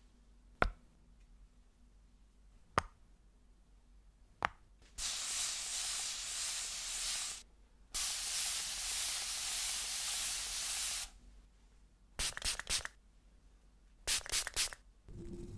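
Close-miked ASMR 'invisible trigger' sounds with no objects in hand: three single sharp clicks a couple of seconds apart, then two long hisses of about two and three seconds, then two short runs of quick crackling clicks near the end.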